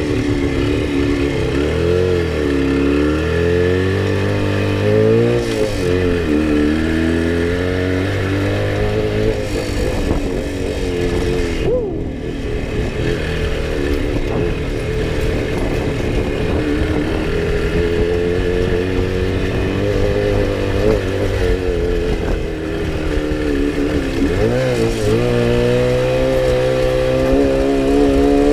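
Jawa 350 two-stroke twin motorcycle engine heard onboard, revving up and falling back over and over as the throttle is worked off-road, with a brief dip about twelve seconds in. The engine is running lean, which the owner says leaves it short of power.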